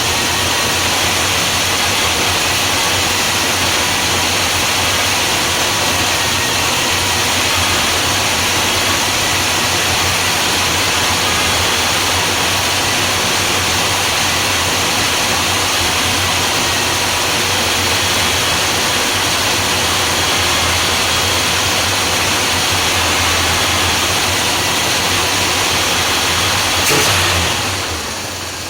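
Chrysler 360 V8 engine running steadily at idle. A single sharp click comes near the end, after which the sound drops noticeably.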